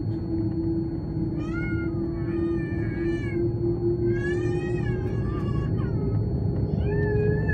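Airbus A330-200 cabin on the runway: low rumble of its General Electric CF6 engines and the wheels, with a steady engine tone slowly rising in pitch. Over it, five short, high, wavering cries, each under a second long.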